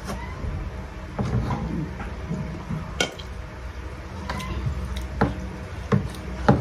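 Light clicks and knocks of plates and utensils at a meal, a few sharp ones spread over the second half, the loudest about three seconds in, over a low steady hum.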